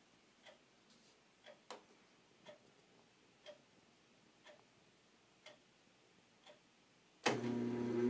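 Faint ticking about once a second, then about seven seconds in a sharp click as the vintage 1990s Nautilus ceiling exhaust fan is switched on, and its motor starts up with a steady hum.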